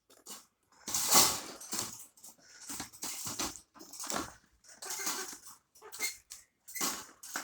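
A hen giving a run of short calls, about one or two a second, the loudest about a second in.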